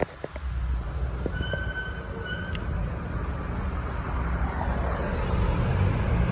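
Steady low rumble of road traffic, with a few clicks at the start and a short high squeal lasting about a second, about one and a half seconds in.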